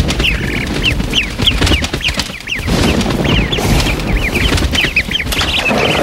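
Baby birds cheeping: a rapid, overlapping stream of short high chirps, each sliding down in pitch, from several chicks at once. Under them runs a steady rushing background noise.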